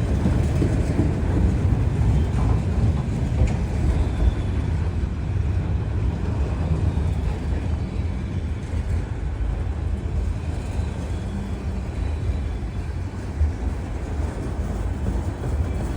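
Freight cars of a long train rolling past, a steady low rumble of wheels on rail.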